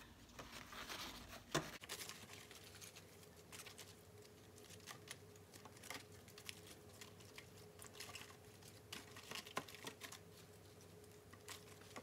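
Faint rustling and soft scattered taps as romaine lettuce leaves are handled and stacked into a plastic container, with one sharper click about a second and a half in. A faint steady hum sits underneath.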